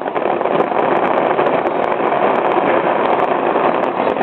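Fireworks crackling and banging in a steady, dense stream of many small pops over a continuous rumbling din.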